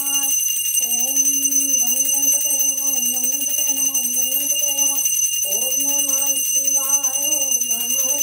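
A puja hand bell rung continuously, a steady metallic ringing of several high tones, under a woman's voice chanting in long, slowly wavering sung notes during the aarti.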